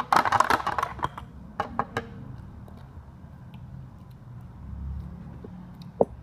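Clattering and scraping against a glass blender jar as a hand works inside it: a dense rattle of clicks in the first second, a few separate clicks about two seconds in, then only faint background.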